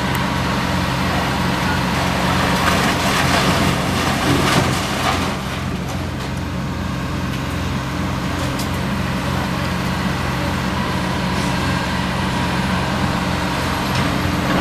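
Diesel engines of hydraulic excavators running steadily while they tear down a building. Debris crunches and crashes, loudest from about two and a half to five seconds in, with scattered knocks later.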